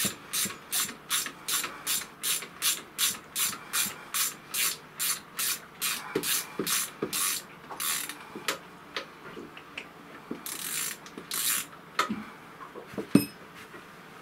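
Ratcheting 10 mm ring spanner clicking in quick, regular strokes, about three a second, as it undoes the bolts holding a marine diesel's raw-water pump. After about eight seconds the strokes slow and thin out, with two longer rasps and then two sharp clicks near the end.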